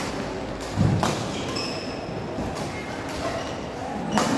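Badminton rackets striking the shuttlecock in a doubles rally: a sharp crack about a second in and another near the end. Just before the first crack comes a heavy thud of a player's footfall on the court.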